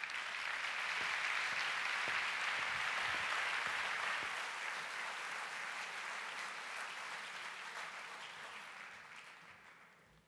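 Audience applauding steadily, the applause fading out near the end.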